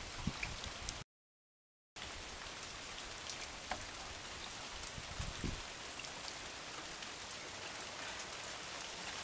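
Steady rain falling on puddles and flooded ground: an even hiss of drops. The sound drops out completely for about a second near the start, and there is a faint low thump about five seconds in.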